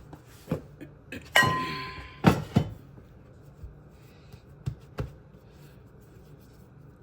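Kitchen handling sounds as bread dough is worked and set into a baking tray: a handful of short knocks and clunks in the first five seconds, one of them ringing briefly like a metal or glass clink, over a steady low hum.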